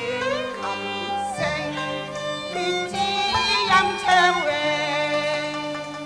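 Cantonese opera music: the accompanying ensemble plays a passage, with a bowed fiddle carrying a gliding, sliding melody over sustained low notes.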